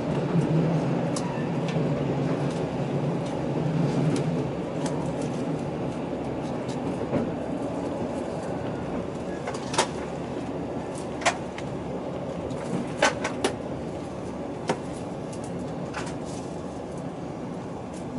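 JR Central KiHa 85 series diesel railcar heard from inside the passenger car as it runs slowly into a terminal platform: a steady engine and running rumble that eases off after about four seconds as the train slows, then a scatter of sharp clicks and knocks from the wheels and running gear from about ten seconds in.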